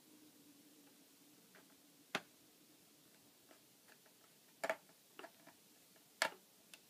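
Sharp clicks and taps of small hard parts or tools being handled, about six at uneven intervals, the loudest about two seconds in and near the end. A faint low hum fades out around the first click.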